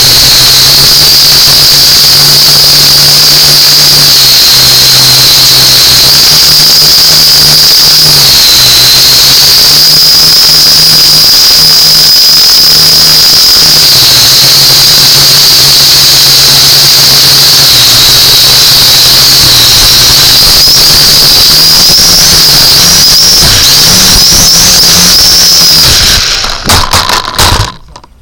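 Small drone's motors and propellers whining loudly close to the onboard camera's microphone, the pitch stepping up and down as the throttle changes. Near the end the whine breaks up into a few knocks and stops as the drone comes down and ends up upside down.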